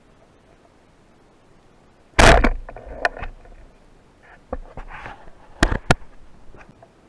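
Omer rubber-band speargun firing underwater: one loud sharp clack a little over two seconds in, followed by several smaller clicks and knocks.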